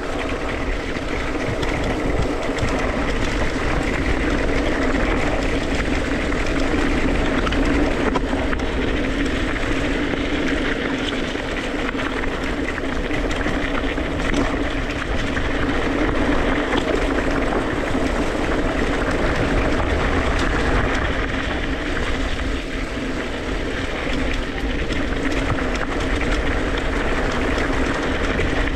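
Mountain bike rolling along a dirt single-track trail: steady tyre rumble and rattle with wind rushing over the on-board microphone.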